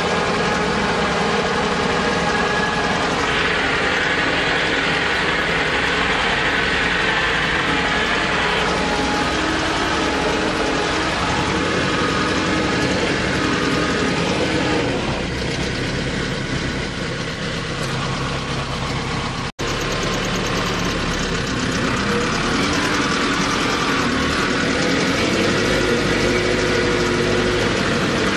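T-40AM tractor's air-cooled diesel engine running steadily as the tractor drives over snow, heard from the driver's seat. The sound cuts out for an instant about two-thirds of the way through.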